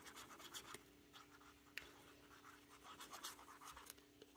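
Faint scratching of a liquid glue bottle's tip drawn across the back of a paper die-cut, in short irregular strokes with one small click a little under two seconds in, over a low steady hum.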